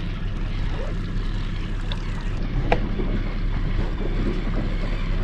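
Suzuki 200 outboard motor running steadily as the boat cruises, under a steady wash of water and wind noise. A single sharp click about two and a half seconds in.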